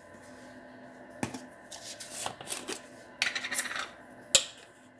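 Off-camera handling of a small spice container on the counter: light clicks and taps, a short rattle about three seconds in, and a sharp click near the end.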